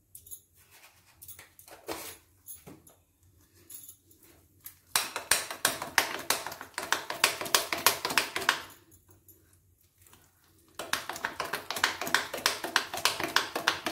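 A metal spoon beating thick jackfruit pakora batter in a glass bowl: rapid, rhythmic strokes of the spoon against the glass, in two spells of a few seconds with a short pause between. A few light taps come before the beating starts.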